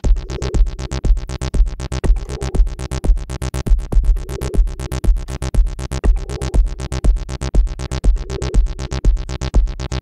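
Electronic background music with a fast, steady beat and heavy bass.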